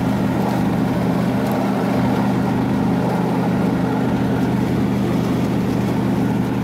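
John Deere D130 riding mower's V-twin engine running steadily below full throttle while the mower cuts grass.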